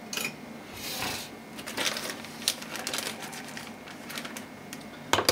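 Zip-top plastic bag of brown sugar crinkling and rustling as it is handled, with a run of small irregular clicks and a louder rustle about a second in.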